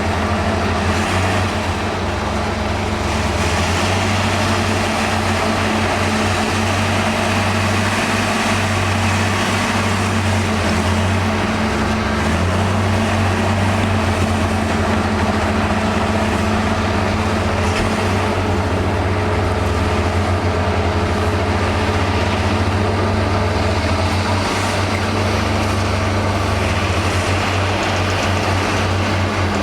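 Heavy diesel engine of earthmoving machinery running steadily under load, its low drone shifting slightly in pitch now and then.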